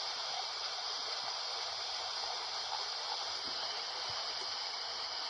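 Steady hiss of radio static from a weak, barely received station at 90.5 FM.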